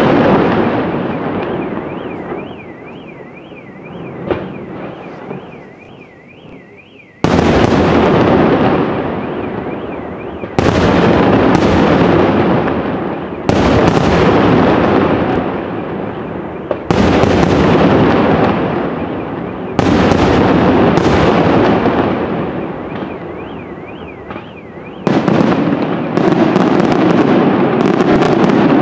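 Fireworks display: large aerial shells bursting with heavy booms, each trailing off in a long rumble and crackle. After a fading rumble of several seconds, the bursts come every one to three seconds, and a rapid run of sharp bangs and crackles starts near the end. In the quieter stretches a thin warbling electronic tone wavers up and down.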